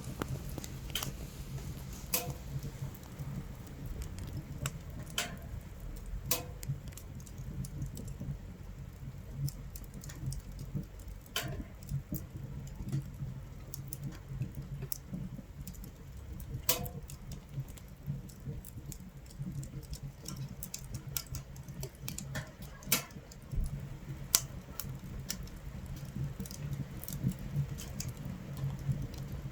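Wood fire in a camping stove crackling, with irregular sharp pops every few seconds over a steady low rumble, and rain pattering on the tent.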